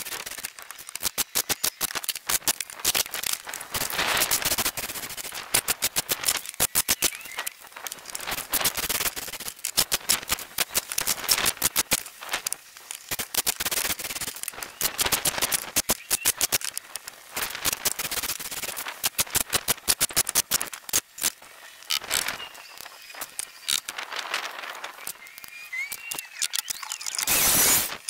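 Cordless impact driver driving screws into pressure-treated deck boards, in repeated bursts of rapid rattling hammering a second or two long, one screw after another.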